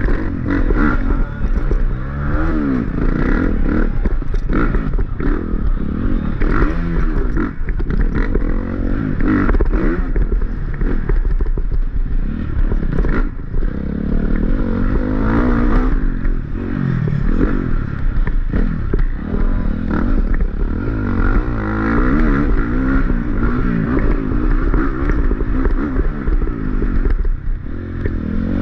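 Dirt bike engine revving up and backing off over and over as it is ridden hard, with clatter and scraping from the bike over rough ground.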